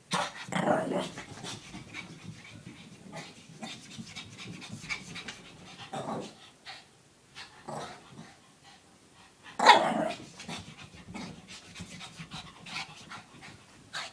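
Shih Tzu panting hard during a bout of zoomies, with scattered short noises throughout and one louder sound about ten seconds in.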